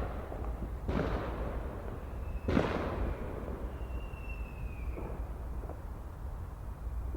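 Fireworks bursting in a display barrage: two sharp bangs about a second and a half apart, the second the loudest, then two fainter pops near the five-second mark. A faint high whistle falling slightly in pitch sounds between them, over a steady low rumble.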